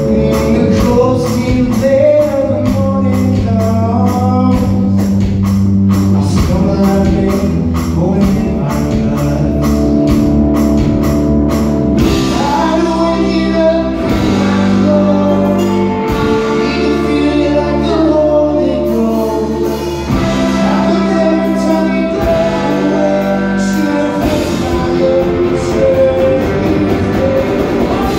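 Live rock band playing through a club PA: electric guitars, bass guitar and drum kit, with a voice singing. Fast, even cymbal strokes drive the first half, and the beat changes about halfway through.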